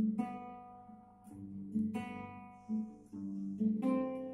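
Acoustic guitar played as accompaniment. Chords are struck about every two seconds and each is left to ring out, with softer single notes picked in between.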